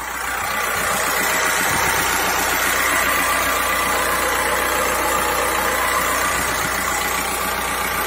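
Skoda Octavia's 1.9 TDI diesel engine idling steadily with its ordinary diesel clatter. There is no extra knocking from the alternator belt tensioner, whose damper has been repaired.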